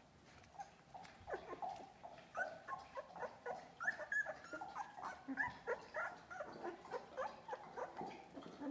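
Two-week-old Australian Labradoodle puppies whimpering and squeaking: many short high cries overlapping, growing busier about a second in.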